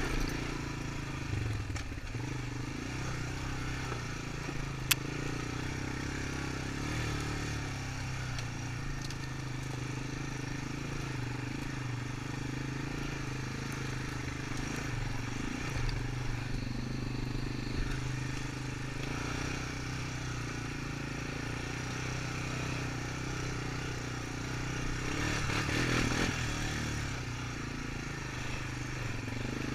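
Honda Recon 250 ATV's single-cylinder four-stroke engine running at low, steady revs while crawling along a rough trail. A sharp click about five seconds in, and the sound gets louder for a moment near the end.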